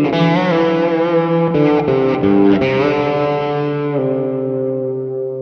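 Fender Stratocaster played with the fingers through a Klon Centaur overdrive with its gain full up, into Rocknroll Amps Reverb DLux combos: a short overdriven lead phrase with bent, wavering notes, then about four seconds in a chord is left to ring and slowly fade.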